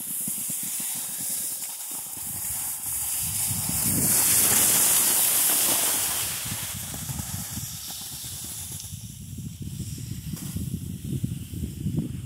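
Steady hiss and scrape of edges sliding over packed snow during a downhill run, swelling to its loudest for a couple of seconds about four seconds in, over a crackling low rumble from the snow and wind on the microphone.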